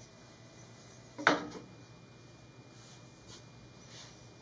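A thin wooden trim strip knocks once, sharply, against a plywood box about a second in, with a short ring after it. A few faint rubbing sounds from the strip being handled follow.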